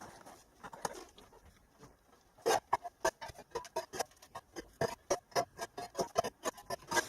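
A rapid, irregular run of sharp clicks and light knocks, several a second, growing busier about two and a half seconds in.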